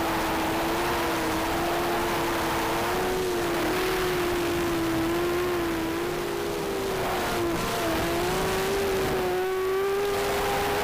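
Eachine Falcon 180 racing quadcopter's brushless motors and propellers buzzing in flight: a steady tone that wavers slightly with throttle and dips briefly about seven and a half seconds in.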